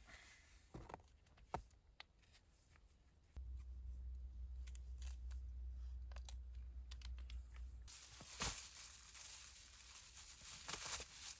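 Scattered clicks and crinkling, rustling handling noises. A low rumble runs for several seconds in the middle, and a stretch of louder, hissy rustling follows near the end.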